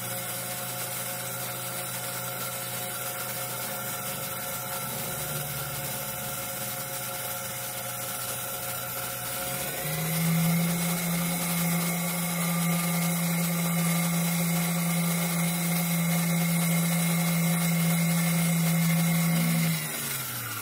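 Mini metal lathe running with a steady motor whine while turning an aluminium rod. About halfway through it speeds up and gets louder, and near the end it winds down as the lathe is switched off.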